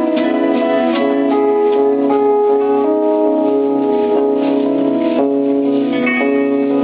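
A live band playing, led by held keyboard chords that change every second or so, with a steady beat in the first couple of seconds.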